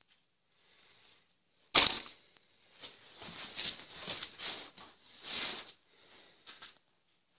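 Handling noise: one sharp knock about two seconds in, then several irregular rustles and scrapes.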